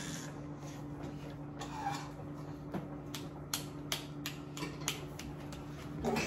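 Kitchen clatter: scattered light clicks and taps of dishes and utensils being handled, with a somewhat louder knock near the end, over a steady low hum.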